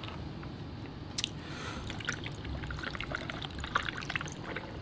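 Warm Milo's sweet tea poured from a bottle over a glass full of ice cubes: the liquid splashes and trickles while the ice gives off scattered short clicks.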